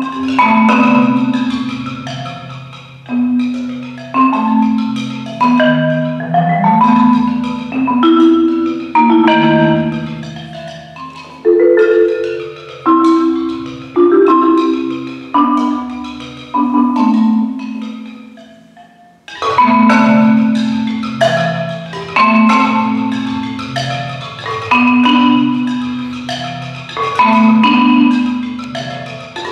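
Solo concert marimba played with mallets: phrases of struck chords and rolled notes that ring and fade. The playing dies away about eighteen seconds in, then a loud new phrase begins.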